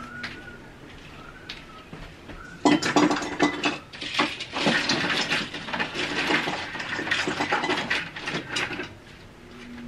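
Hard plastic Halloween decorations rattling and clattering as they are handled and packed away. Busy clicking and knocking starts about three seconds in and goes on for about six seconds, with quieter handling sounds before it.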